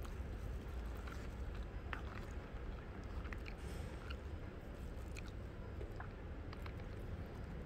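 A person chewing food close to the microphone, with scattered small clicks over a steady low rumble.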